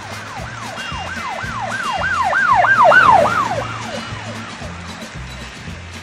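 A siren wailing in quick rise-and-fall cycles, about three a second, growing louder to a peak about three seconds in and then fading away, over background music.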